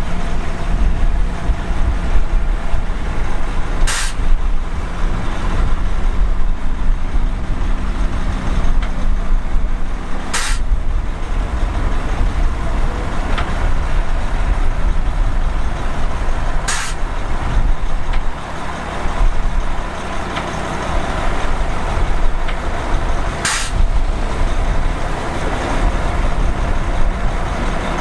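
Heavy diesel earthmoving machinery running steadily with a deep rumble. Four short, sharp hisses cut through it about six seconds apart.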